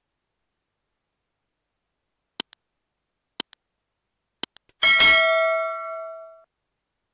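Subscribe-reminder sound effects: three sharp mouse clicks about a second apart, each a quick double click, then a bright bell ding that rings for about a second and a half and fades out.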